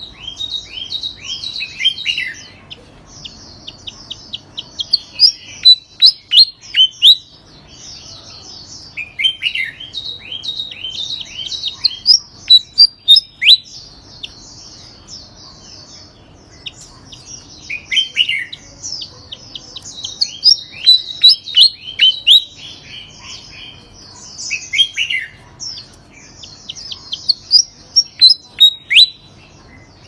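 Caged pied fantail singing: phrase after phrase of quick, sharp, high notes, many sliding downward, each burst lasting a few seconds with short pauses between.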